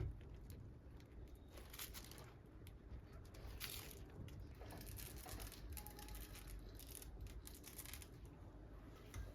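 Faint rustling and crinkling with scattered light clicks and taps, the sound of things being handled.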